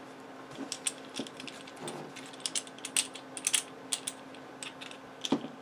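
Irregular small clicks and taps of a Leatherman Free T4 multitool being handled and fitted into the clamp of a Work Sharp guided knife sharpener, with a slightly heavier knock near the end.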